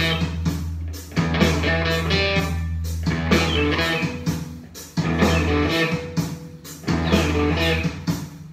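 Semi-hollow electric guitar played through an amplifier: a blues-rock riff in phrases, with heavy sustained low notes and brief pauses between phrases.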